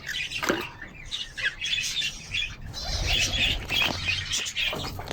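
Many short chirps from several small birds in an aviary, overlapping and irregular.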